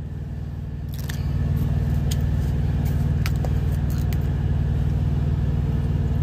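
Semi truck's diesel engine idling with a steady low hum, heard inside the cab, a little louder from about a second in. A few light clicks and rattles from a seasoning shaker are heard over it.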